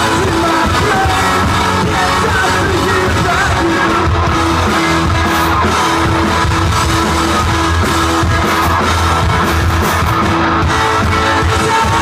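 Live indie rock band playing loud: distorted electric guitars, bass and drum kit, with a male lead vocal singing over them.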